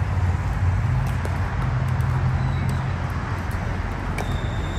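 Pickleball paddles popping against the plastic ball in a rally, two sharp hits about a second in and near the end, over a steady low rumble of city traffic.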